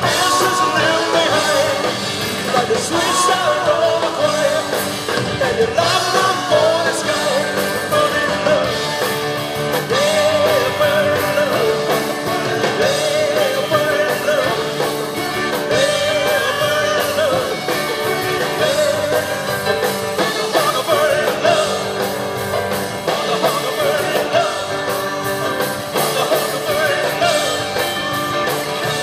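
A live band playing through a PA system, with a singer's voice over guitars, heard loud and steady throughout.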